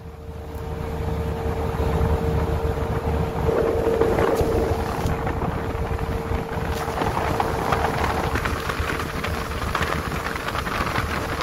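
Motorboat engine running steadily, a constant hum over a low rumble, with wind buffeting the microphone.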